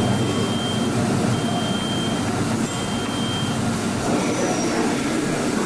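Steady hum and rumble of machinery on an electronics production line. Three drawn-out beeps of the same high pitch sound over it in the first few seconds, and a fainter, higher tone follows about four seconds in.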